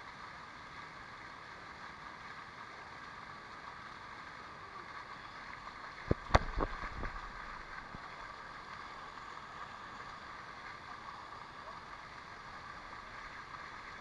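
Water running steadily down a waterfall's rock cascade, with a short cluster of sharp knocks close to the microphone about six seconds in.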